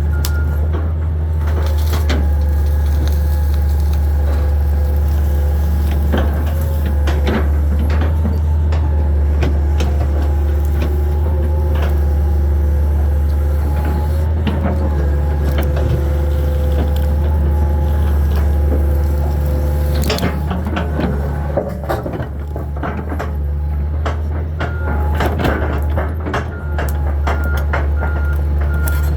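A 22.5-ton Hitachi 225 excavator's diesel engine running steadily under load with hydraulic whine, while wood and debris crack and crunch repeatedly as the machine works it. An evenly repeating warning beep starts near the end.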